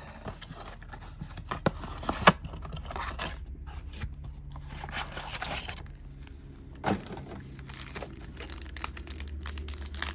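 Trading-card pack wrappers being torn open and crinkled by hand, a crackly rustle with a few sharper snaps about two seconds in and again near seven seconds.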